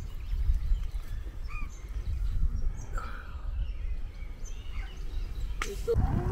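Scattered bird calls, short chirps and squawks a second or two apart, over a steady low rumble of outdoor background noise. A sharp click comes near the end.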